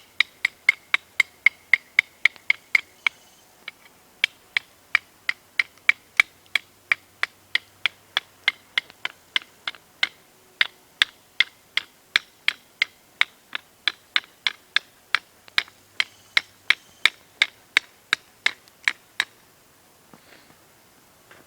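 Homemade scrap-metal knife being batoned through wood, a baton striking its spine about three times a second, each blow with a short bright ring from the blade. There is a brief pause about three seconds in, and the blows stop shortly before the end.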